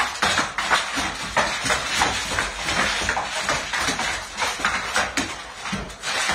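Two dogs play-fighting on a hardwood floor, their claws scrabbling and clattering on the boards in quick, irregular strokes.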